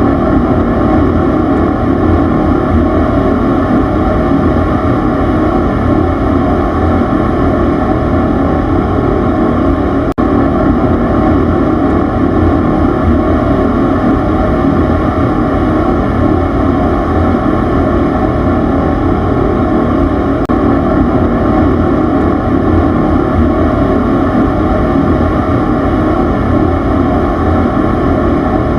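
Steady, loud machine rumble, a dense low drone that keeps an even level and pitch throughout, with a brief dip and click about ten seconds in.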